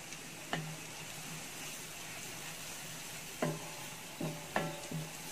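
Sunflower oil sizzling steadily in a pan of frying shallots and garlic with freshly added ground pepper, while a wooden spatula stirs the mix. The spatula knocks against the pan once about half a second in and several times in the second half.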